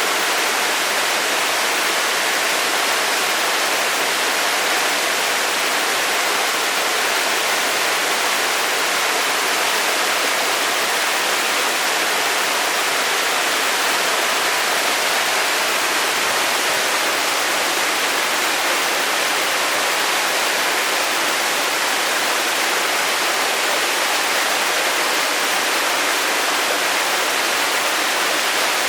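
Waterfall: a steady, unbroken rush of falling water, bright and hissy with little low rumble.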